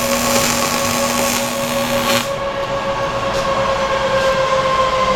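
Welding hiss and crackle that cuts off about two seconds in, over a steady machine hum that carries on and drifts slightly lower in pitch.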